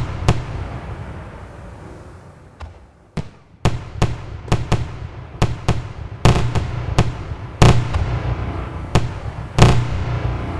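Fireworks display: aerial shells bursting with sharp, echoing bangs. A burst comes right at the start, then a lull with a couple of fainter pops, and from about three and a half seconds in the bangs follow one another at irregular intervals.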